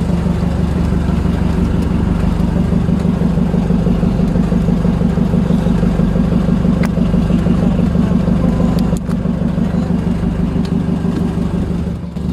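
A fishing boat's engine running steadily, with a constant low hum and a brief dip in level near the end.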